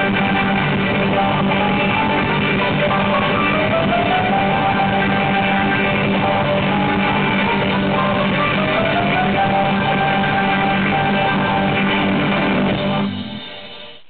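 Rock band recording with guitars over a held low note, the lead line sliding up in pitch three times. The band stops about thirteen seconds in, and only a faint hiss remains.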